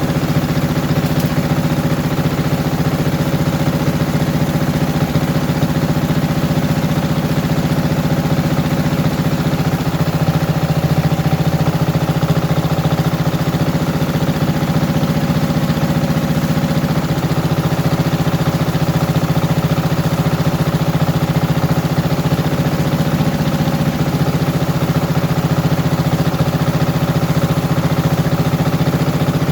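Wen D6000 generator's single-cylinder diesel engine running steadily at a constant speed, with small shifts in its tone about a third and two thirds of the way through.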